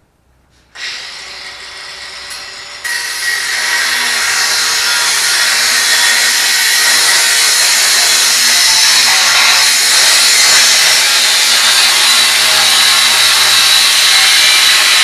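Ryobi 18V cordless angle grinder spinning up, then working against material from about three seconds in, with a loud, steady, hissing grind that carries on through.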